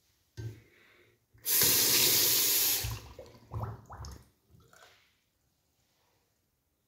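Water from a single-lever mixer tap running into a ceramic vessel basin for about a second and a half, then cut off abruptly, followed by a few soft knocks.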